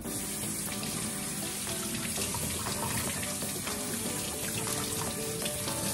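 Kitchen tap running steadily into the sink, starting at the very beginning and shutting off right at the end, with background music underneath.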